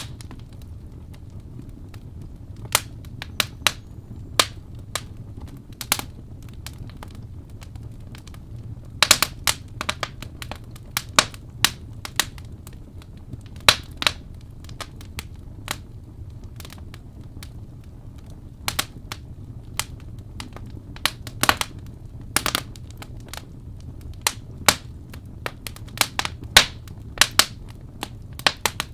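Wood fire crackling in a fireplace: irregular sharp pops and snaps, a few louder than the rest, over a steady low rumble of the flames.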